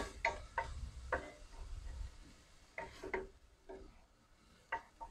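Wooden spoon stirring chopped onion, celery, green chile and cilantro sautéing in a stainless steel pot, making a series of short, irregular scrapes and taps against the pot.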